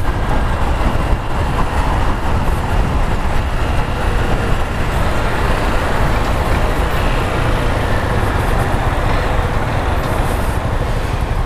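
Wind rushing over the camera microphone on a moving motorcycle, with the Honda CG 150 Fan's single-cylinder engine running underneath, steady throughout.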